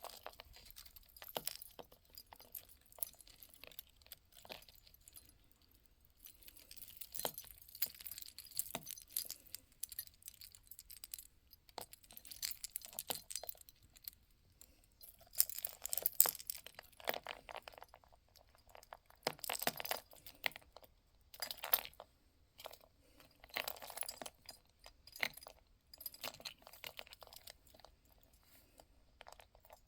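Beads clicking and clinking together as they are handled, in scattered small clicks with a few louder flurries past the middle.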